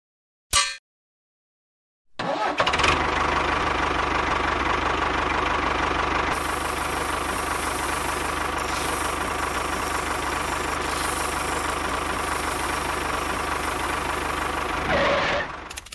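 A short burst about half a second in, then a small motor starts about two seconds in and runs steadily. It swells briefly and winds down near the end.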